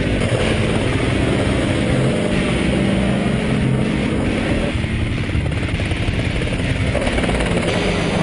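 Enstrom F-28F piston helicopter flying low and close past, its turbocharged engine and rotor beat loud and steady.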